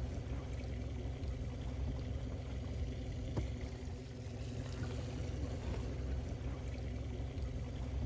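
Zodiac's outboard motor idling, a steady low rumble, with water lapping around it. One light knock about three and a half seconds in.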